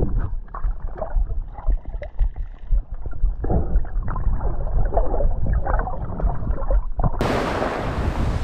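Muffled underwater water noise with irregular gurgles, as heard by a camera below the surface. About seven seconds in it cuts abruptly to open air: small waves washing on the shore and wind on the microphone.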